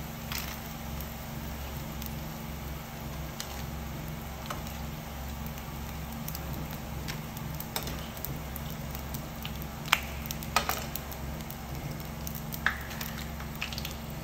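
Prawn crackers frying in shallow hot oil, with a faint sizzle and crackle over a steady low hum. Metal tongs click sharply a few times in the second half as the puffed crackers are lifted out of the pan.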